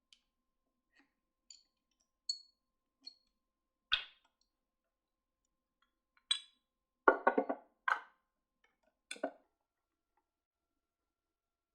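Scattered light clicks and clinks of small hard objects being handled on a work surface. There are a few faint ringing clinks at first, a sharper knock about four seconds in, and a quick cluster of louder knocks around seven seconds.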